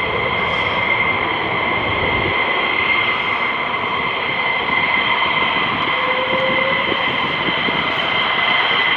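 F-15 jet engines running with a steady high-pitched whine over a loud, continuous rush.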